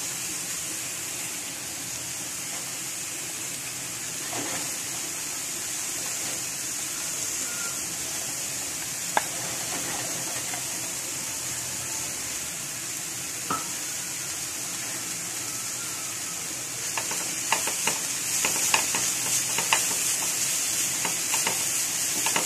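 Beetroot and long-bean stir-fry sizzling steadily in a frying pan, with a couple of single knocks. From about three-quarters of the way in, a wooden spatula scrapes and taps against the pan as it is stirred.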